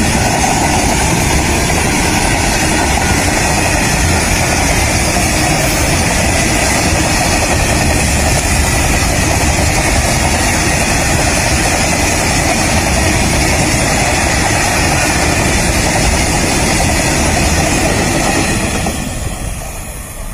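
Open-top freight wagons rolling past close by, a steady loud rumble and clatter of wheels on rail that fades away near the end as the last wagon passes.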